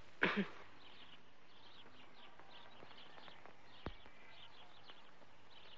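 Faint birds chirping in quick, scattered calls, with a single sharp knock a little before four seconds in.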